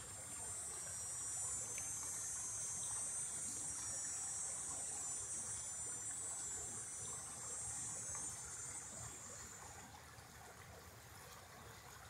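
Shallow creek trickling over rocks in a riffle, a soft steady babble. Over it a high-pitched steady buzz stands out, then fades away about ten seconds in.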